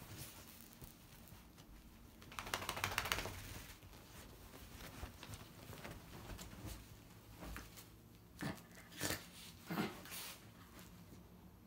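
Rustling and crinkling as a small dog wriggles and rolls on a duvet while wearing a disposable diaper. There is a longer burst of rustling about two and a half seconds in, then three short bursts near the end.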